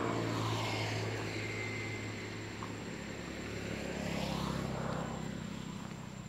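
Engine noise of a passing motor vehicle, a steady hum that swells as it goes by, fades, and swells again about four seconds in.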